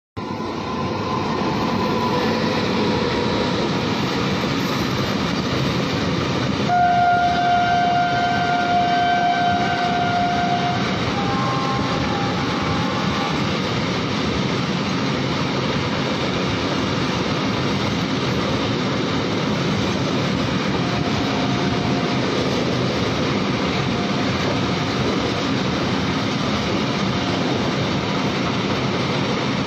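Long freight train, the Super Vasuki, running past a station platform: a steady rumble and rattle of wagons going by. About seven seconds in, a train horn sounds for about four seconds, followed by two shorter horn notes at different pitches.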